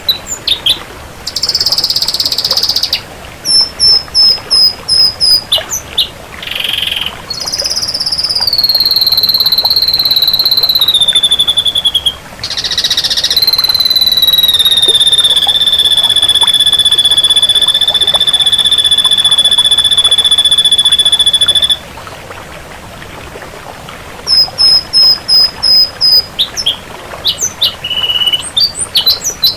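Ashy drongo singing: runs of quick clipped high notes and harsh buzzy notes, then a long clear whistle that slides down and is held steady for about seven seconds before cutting off.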